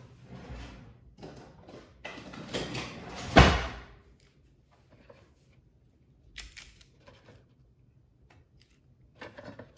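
A kitchen drawer slid open and pushed shut, ending in a sharp bang about three and a half seconds in, followed by a few faint clicks.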